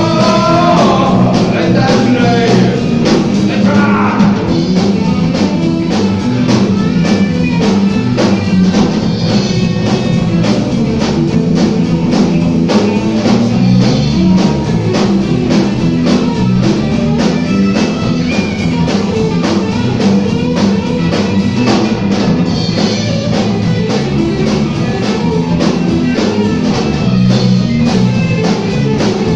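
Rock band playing live: electric guitar, bass guitar and drum kit, with a steady drumbeat.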